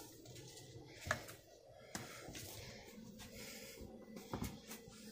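A few faint taps and knocks in a quiet room, with light scuffling, as a kitten plays with a plastic spring toy on a wooden floor.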